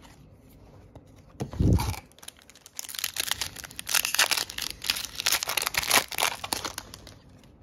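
A foil Yu-Gi-Oh! booster pack wrapper being crinkled and torn open, a dense crackling that runs for about four seconds. A dull thump comes first, about a second and a half in.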